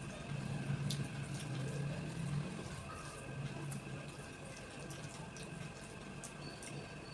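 Quiet chewing and small wet mouth clicks while eating, over a steady background hum.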